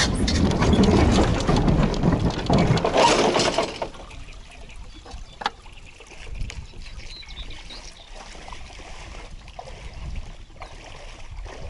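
Water rushing and splashing around a small boat for about four seconds, then dropping to quieter lapping and dripping with a few small ticks.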